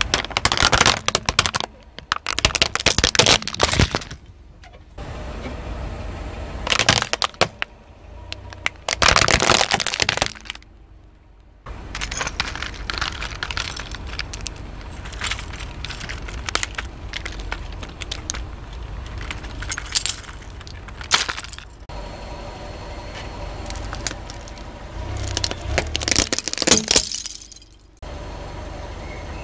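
Plastic toy blaster gun cracking and snapping under a car tyre, in several loud bursts of sharp cracks. In between come smaller clicks and rattles of broken plastic pieces.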